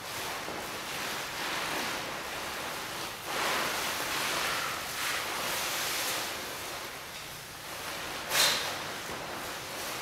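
Plastic sheeting and paper packaging rustling and crinkling as a dancer rolls over and through them, rising and falling in swells, with one sharper crackle about eight seconds in.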